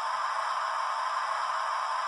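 Steady hiss of steam from the small onboard speaker of a Hornby TTS sound-fitted model Flying Scotsman standing still, the decoder's recorded sound of an A3 locomotive at rest.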